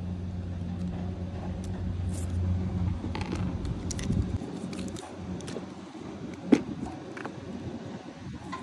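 Small plastic clicks and rattles of a toy RC car's body shell and battery pack being handled, with one loud sharp click about six and a half seconds in. A steady low hum runs under the first half and stops about four seconds in.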